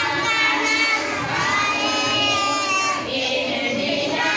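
A crowd of young children's voices, singing together with shouting and chatter mixed in.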